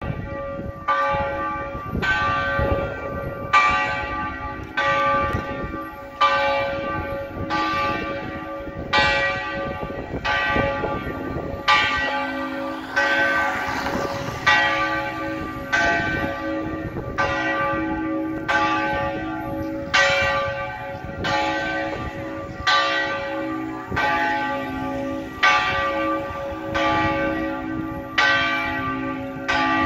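A single church bell, bell I of the cathedral's ring of four, rung for the hour of None. It strikes in an even rhythm, about one stroke every 1.3 seconds, and each stroke rings on into the next.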